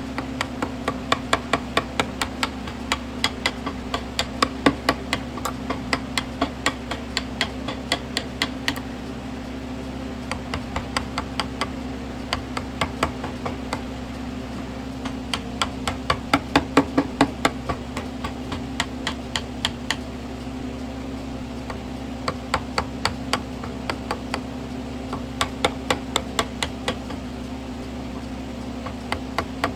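Steel chisel being driven into a block of wood the carver believes is birch, cutting a groove: runs of sharp knocks about three a second, broken by short pauses, over a steady low hum.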